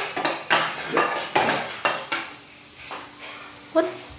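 A utensil stirring and scraping in a frying pan, about two strokes a second at first, over chopped garlic, chili and kencur sizzling in hot oil. The strokes then stop and the sizzling carries on, with one short ringing knock near the end.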